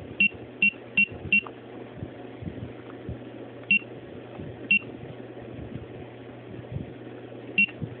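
DSC Alexor PC9155 alarm keypad giving a short high beep with each key press, four in quick succession and then three more spaced a second or more apart. The keypad is locked up by a programming bug while the TL265 domain name is being edited, so the presses beep but do nothing.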